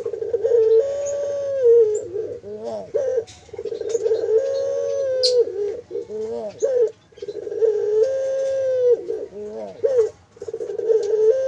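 Puter dove (domestic ringneck dove) cooing: long, drawn-out coos of about two seconds, each led by a few short wavering notes, repeating every three to four seconds. Faint small-bird chirps sound behind.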